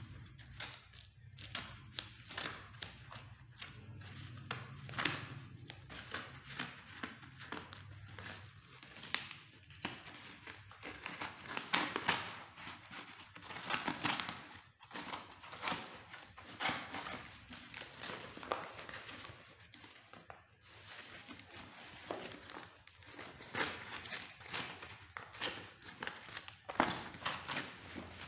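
Brown paper parcel wrapping being pierced, torn and crumpled by hand: a continuous run of irregular rustles and sharp crackles, busiest in the middle.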